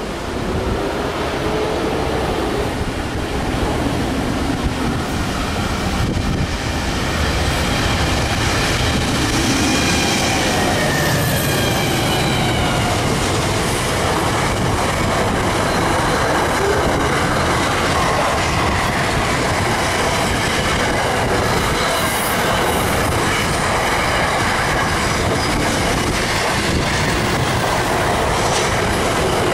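Container freight train passing close by: a steady rumble of wagon wheels on the rails with clickety-clack over the rail joints, and faint wheel squeal around ten seconds in. It grows louder over the first several seconds, then holds steady as the wagons roll past.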